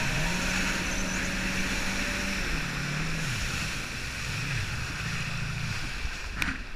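Jet ski engine running, its pitch dropping about three seconds in and wavering as the throttle comes off, then fading near the end. Water rushes past the hull and wind buffets the microphone throughout.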